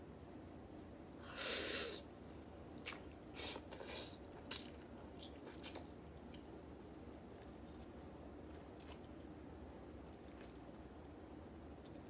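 A person eating ramen noodles: a slurp about a second and a half in, then a few seconds of wet chewing and clicking mouth sounds that settle into quieter chewing.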